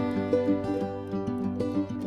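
Instrumental background music: a melody of distinct notes following each other several times a second over held tones.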